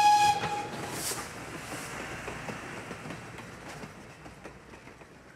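Steam locomotive's whistle cutting off about half a second in, then the train running on with many small clicks of wheels over the rails, fading steadily away.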